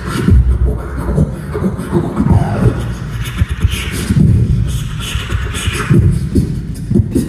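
Solo beatboxing into a handheld microphone, amplified through a PA: a dense rhythm of deep bass kicks with sharper hissing hi-hat and snare sounds over them, and a falling vocal tone about two seconds in.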